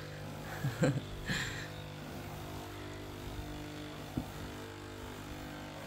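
Carpet-washing wet vacuum (spray-extraction machine) running with a steady motor hum as its wand is drawn across carpet, washing it and sucking up the water. A few brief louder sounds come about a second in.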